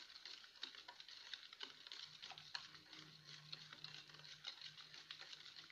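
Wire whisk beating a thin oil-and-milk cake batter in a plastic bowl: fast, faint ticking and swishing of the wires against the bowl.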